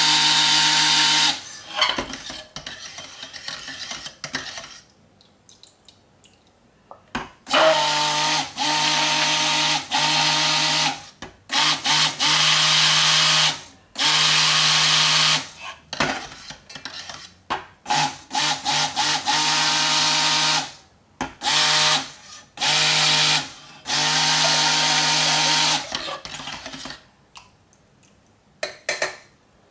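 Stick blender run in short pulses of one to two seconds, about nine times, in liquid soap oils and lye solution while bringing the mixture to trace. Quieter clicks and clatter come between the pulses.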